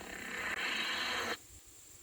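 Lightsaber hum and swing sound from a Golden Harvest v3 soundboard's speaker, swelling louder about half a second in, then cutting off suddenly a little over a second in.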